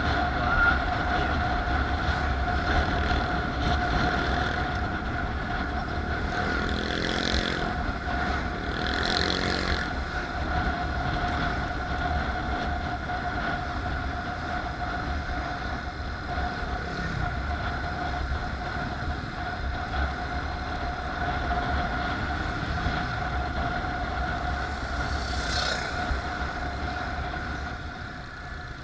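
Road vehicle running, a steady low rumble with a constant whine over it. There are two brief louder pitched sounds about seven and nine seconds in, and a sharp click near the end.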